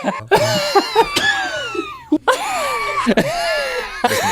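A man's wheezing laughter: high-pitched, squealing laugh-wheezes that glide down in pitch, coming in several bursts with short gaps.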